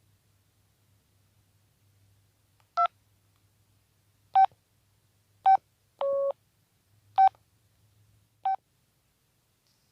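Audiovox CDM-8900 cell phone's keypad beeps as buttons are pressed: five short beeps about a second apart, with one longer, lower-pitched beep in the middle.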